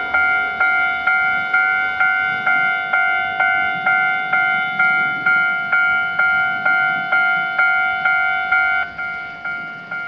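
Japanese level crossing's electronic warning bell ringing a steady 'kan-kan' of about two strikes a second, warning of an approaching train as the barriers come down. About nine seconds in it drops noticeably in volume and keeps ringing.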